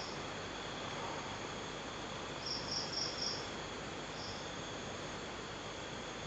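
Insects chirping: a quick run of four short, high chirps about two and a half seconds in and one more a second later, over a steady high background hiss.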